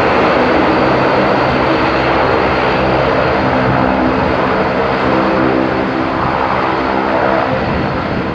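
Bombardier Dash 8 turboprop airliner's engines and propellers running as it taxis: a steady drone with several level humming tones, easing slightly near the end.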